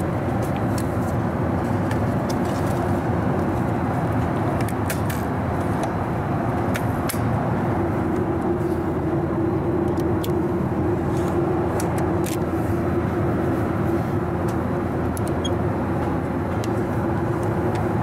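Steady cabin roar of a Boeing 737-800 in flight: airflow and engine drone, with a hum that grows a little stronger about halfway through. Faint clicks now and then from handling nearby.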